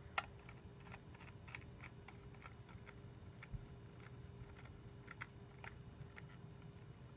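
Faint, irregular small clicks and taps of a small screwdriver and screws being worked through a drive's rubber mounts inside a Mac Mini, with a sharper click just after the start and a dull knock about three and a half seconds in. A faint steady hum sits underneath.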